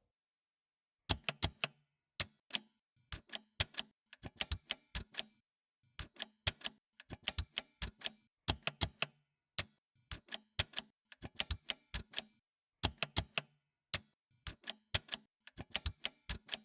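Manual typewriter keys striking one after another in uneven bursts, like words being typed, with short pauses between the bursts.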